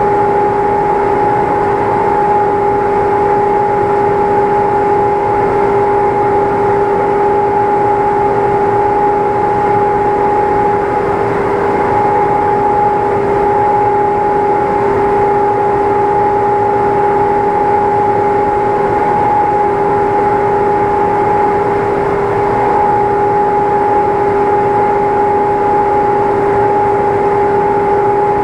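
A machine running with a steady hum at one constant pitch, unchanging throughout.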